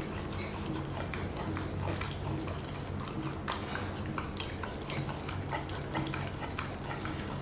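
Pomsky puppy licking and chewing food out of a stuffed rubber Kong toy: irregular wet smacks and small clicks over a low steady hum.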